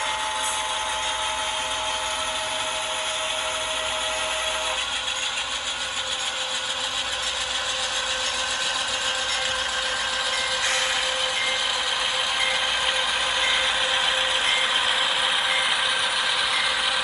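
HO scale model diesel locomotives running past: the steady clatter and whir of their drive gears and wheels on the track, mixed with the diesel sound from their ESU LokSound decoders. The sound grows a little louder as the locomotives come close.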